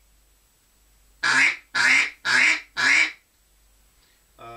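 A Cadence duck call blown as four quacks in a row, about two a second, starting about a second in. It is the four-note quack string, common in ducks, used to call them while hunting.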